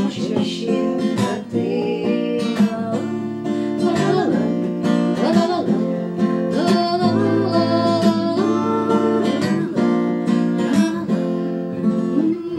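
Acoustic guitar strummed and picked, accompanying a woman singing a song.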